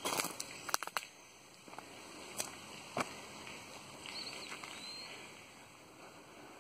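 Uneven footsteps on outdoor ground: a quick cluster of steps in the first second, then a few single steps. A few short, high chirps about four seconds in, typical of a small bird.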